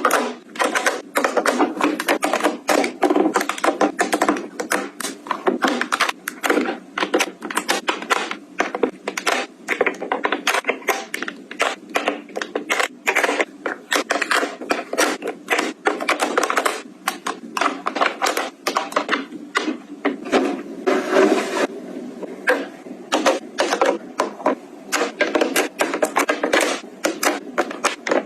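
A quick, uneven run of clicks, taps and clacks of small items being handled and set down, several a second, with a short rustling hiss about three quarters of the way through.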